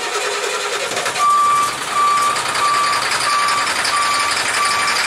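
Sterling dump truck's reverse-gear back-up beeper sounding steadily, starting about a second in at about one and a half beeps a second, over the running Cat C7 diesel engine. The beeper sounds because the transmission is stuck in reverse.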